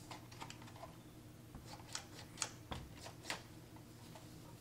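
Faint, scattered light clicks and knocks of a plastic 1/12-scale RC buggy being handled.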